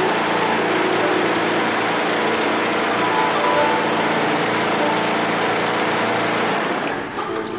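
Multi-head automatic template sewing machine running steadily, its heads stitching. Near the end the machine noise drops away and plucked-string music comes up.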